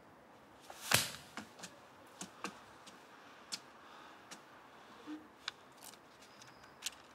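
Scattered small clicks and light rustles, as of hands handling a small card or paper, over faint background hiss; the loudest click comes about a second in, the rest spaced irregularly.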